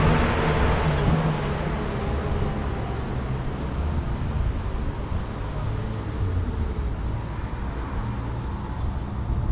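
Motor vehicle noise: a steady rumble with a low, wavering engine drone. It is loudest just after a cut at the start and eases slightly.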